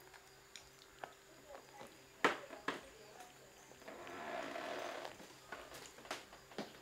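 Quiet scattered clicks and taps of a kitten's paws and claws on a chair and table edge, with one sharper knock about two seconds in and a soft scuffling rustle about four seconds in as it climbs up onto the tabletop.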